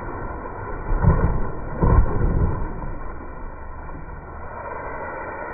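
Car tyres rolling over wet brick paving strewn with soda cans, a low rumble with two dull thumps about one and two seconds in, fading as the car moves off.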